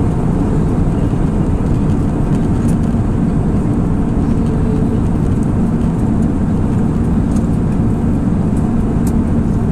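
Steady cabin noise inside an Airbus A319 airliner during its descent: a low rumble of the jet engines and the air rushing past the fuselage, with a faint steady hum.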